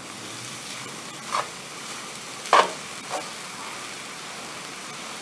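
Soy mince sizzling in a frying pan while it is stirred with a plastic spatula, a steady hiss as the water from the blended onion and garlic cooks off. A few short scrapes of the spatula against the pan, the loudest about halfway through.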